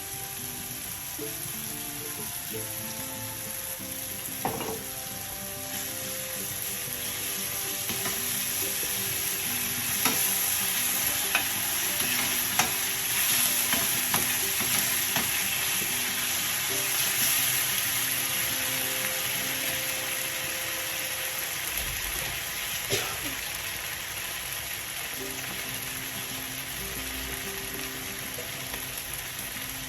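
Vegetables in a cheese pasta sauce sizzling in a frying pan while being stirred, with a few sharp clicks of the utensil against the pan. The sizzle grows louder in the middle and then settles.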